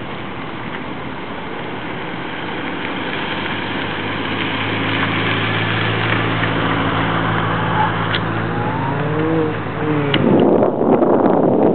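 A car's engine running and revving as it drives an autocross cone course, with its pitch rising and falling through the turns. Near the end, wind rushes loudly over the microphone.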